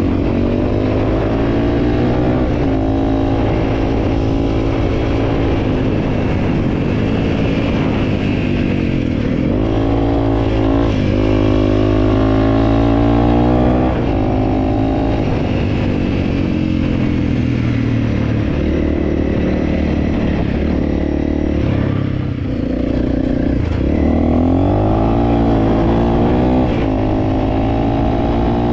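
Honda CRF300L's single-cylinder four-stroke engine running under way, its revs rising and falling several times, with a brief dip in revs and loudness about two-thirds of the way through.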